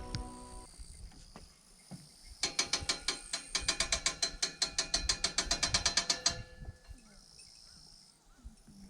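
A fast, even run of mechanical clicks, about ten a second, like a ratchet, lasting about four seconds from a couple of seconds in.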